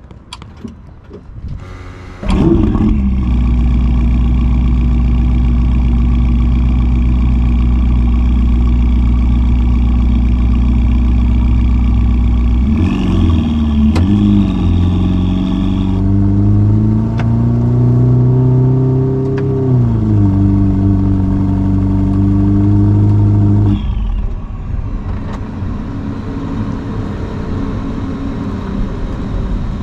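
Ferrari SF90's twin-turbo V8 breathing through a Novitec sport exhaust, heard from inside the cabin. It fires up suddenly about two seconds in and idles loudly and steadily. Then its pitch dips and climbs gradually as the car pulls away slowly, before it steadies and drops quieter near the end.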